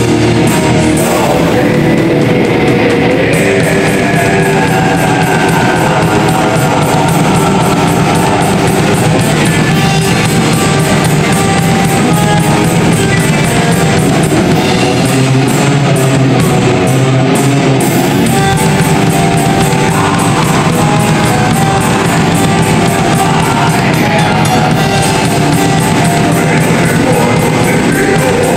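Black metal band playing live: distorted electric guitars and bass over fast drumming with rapid, regular cymbal hits.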